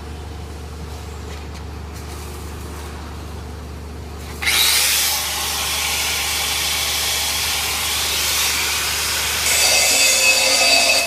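Flux-cored arc welding: after a low steady hum, the arc strikes suddenly about four seconds in and runs as a loud, continuous crackling hiss.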